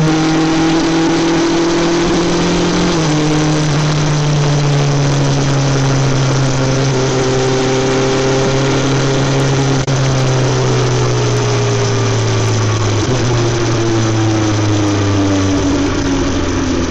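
BMW S 1000 XR's inline-four engine running through an Akrapovic exhaust while riding. The engine note drops in steps three times and otherwise sinks slowly, over steady wind and road noise.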